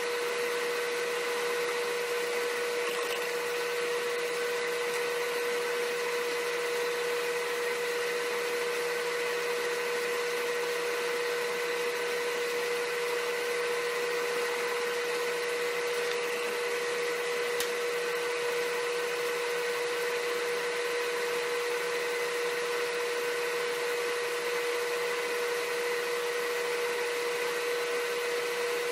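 Steady machine hum with one strong constant tone, like a fan or small motor running in the room.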